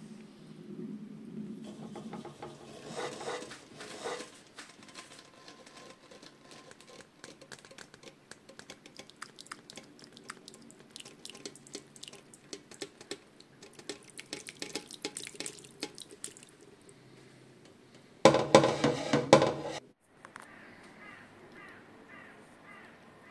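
A spoon scoops and ladles thick chicken and carrot stew, with wet squelching, dripping and many small clicks of the spoon against the dish. About 18 s in there is a much louder noisy burst lasting about two seconds.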